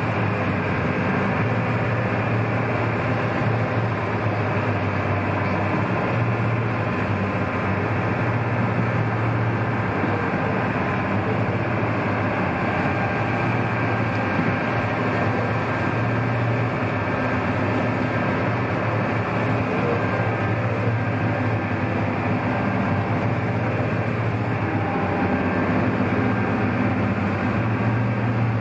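Sightseeing boat's engine running steadily under way: a constant low hum mixed with the rush of water and spray along the hull.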